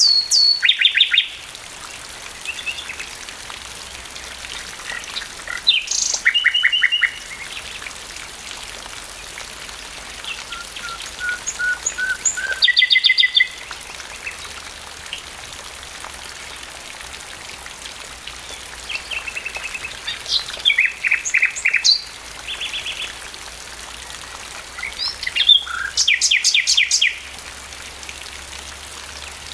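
Common nightingale singing in steady rain: about five short phrases of fast repeated notes and whistles, each a second or two long, with pauses of several seconds between them, over a constant hiss of rainfall.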